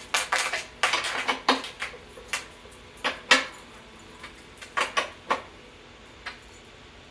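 Marching snare drum with its top head tuned tight, near 'tabletop' tension, struck with sticks in short bursts of test strokes: a quick run of crisp, ringing cracks at first, then single hits and pairs spaced out, with the last one near the end.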